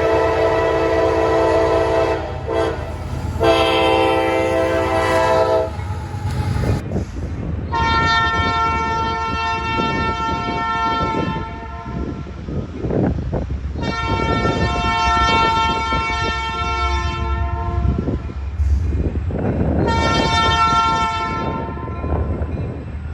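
Locomotive air horns: a lower chord sounds twice, then a higher-pitched horn gives two long blasts and a short one, the start of the long-long-short-long grade-crossing signal. A passing train rumbles and clatters underneath throughout.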